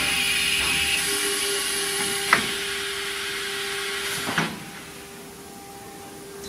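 Auto-loading CNC router machinery running: a steady hiss of air over a constant hum. Two sharp clicks come about two seconds apart, and with the second the hiss cuts off, leaving a quieter hum.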